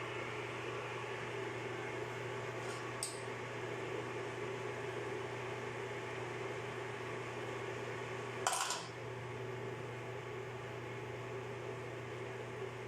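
Steady hum of a running workshop machine, with a light click about three seconds in and a sharper metal clank at about eight and a half seconds.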